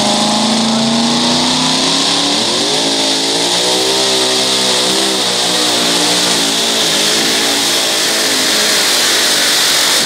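Supercharged engine of a two-wheel-drive pulling truck at full throttle, dragging a weight-transfer sled. The revs climb for the first couple of seconds, jump higher, then waver up and down through the pull, and the sound drops away suddenly at the end.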